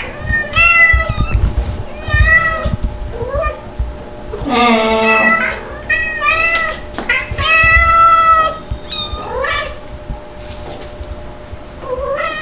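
Domestic cats meowing over and over, some calls drawn out, one lower and rougher about four and a half seconds in, then a pause before a last short rising meow near the end.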